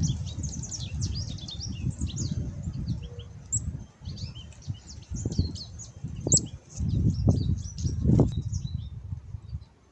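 Female black-capped chickadee giving the raspy, fledgling-like begging call before nesting season: a busy run of short, high chirping notes over a low rumble.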